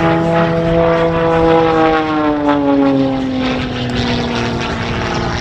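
Extra 300S aerobatic plane's propeller and engine droning loudly, its pitch sliding steadily downward from about two seconds in and then levelling off.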